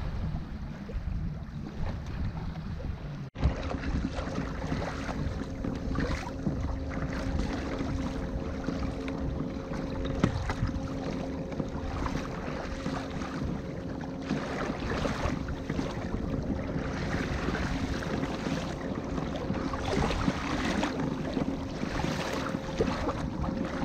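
Wind on the microphone and choppy water splashing against the hull of a Hobie Outback kayak under way, with a faint steady hum beneath. The sound drops out briefly about three seconds in.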